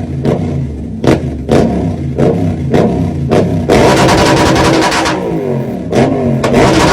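Yamaha MT-07 parallel-twin engine through an Akrapovic exhaust being revved, first in several short sharp throttle blips, then in a longer, stronger rev about halfway through and another near the end.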